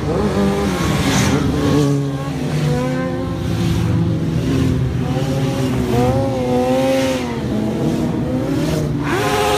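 Several sport bike engines passing close by one after another, revving up and down so their pitch rises and falls.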